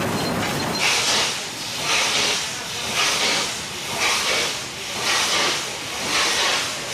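Steam locomotive working slowly, its exhaust giving a hissing chuff of steam about once a second; a low rolling rumble of the train fades about a second in as the beats begin.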